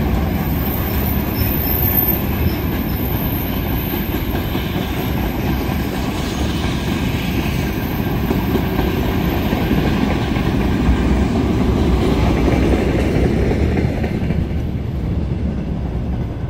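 Freight train of boxcars and tank cars rolling past without stopping: a steady heavy rumble of wagon wheels on the rails, slightly quieter near the end.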